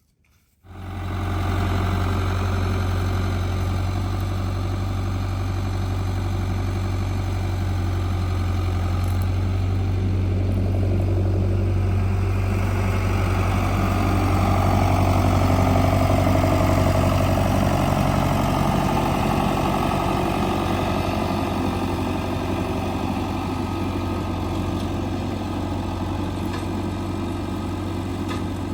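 An engine running steadily with a deep, even hum. It cuts in suddenly just after the start and holds without a break, a little louder in the middle.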